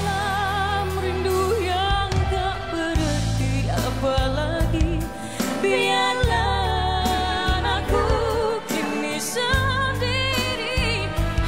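Female vocals singing a slow Malay pop ballad live over a backing band, with long held notes carrying strong vibrato and wordless melismatic runs.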